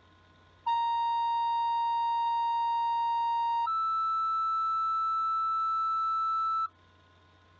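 Two-tone fire dispatch paging tones received over a scanner radio: a steady lower tone held for about three seconds, then a higher tone for about three seconds. This is the tone-out that alerts a volunteer fire company to a call.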